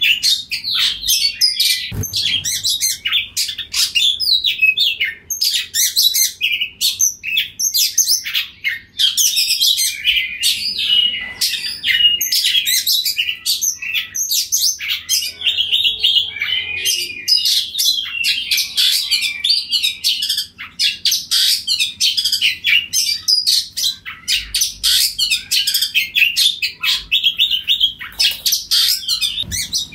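Oriental magpie-robin singing loudly and without pause, a rapid, varied stream of whistles and chirps.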